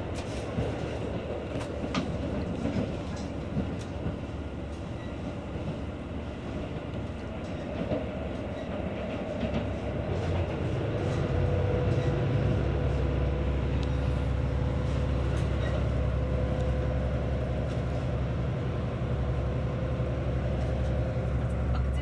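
Interior running noise of a Limited Express Nanki diesel railcar, heard from inside the passenger cabin. Scattered clicks from the wheels come through in the first half, and from about halfway on a low drone grows louder and holds steady.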